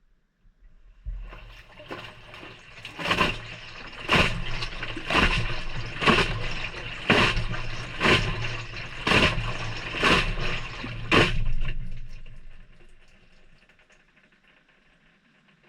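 Maytag front-loader drum turning on a delicate cycle, heard from inside the drum. The wet laundry splashes in the water about once a second over the low hum of the motor. The tumble starts about a second in and winds down near the end, as the drum pauses between turns.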